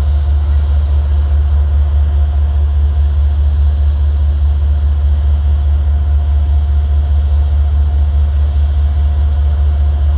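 Amtrak GE Genesis P32AC-DM diesel locomotive standing and running steadily: a loud, even, deep engine rumble with a faint steady whine above it.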